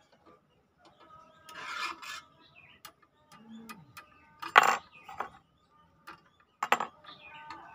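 A steel file scraped against the base of a small round metal object in three short strokes, the loudest about halfway through and another near the end, with light metal clicks between them.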